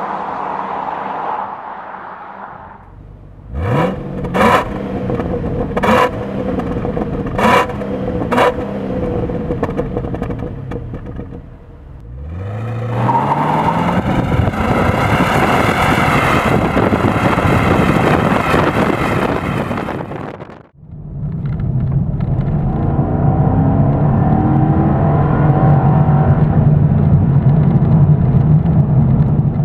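2014 Holden VF Calais V's 6.0-litre V8 under hard acceleration: first the car pulling away and fading, then a run of five sharp revs with pops. About twelve seconds in the engine revs up quickly and then runs loud and rising, heard from beside the exhaust at the rear. About twenty-one seconds in, the engine is heard from inside the cabin, accelerating from 60 to 100 km/h near 4,000 rpm as its pitch slowly rises.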